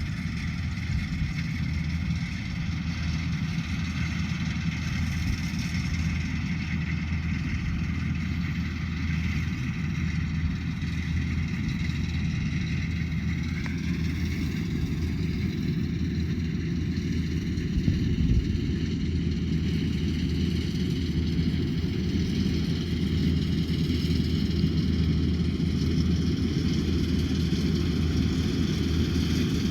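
Rice combine harvester running steadily at working speed: a low engine hum under a high machinery whine. The whine's pitch steps up slightly about halfway through, and there is a single knock a little later.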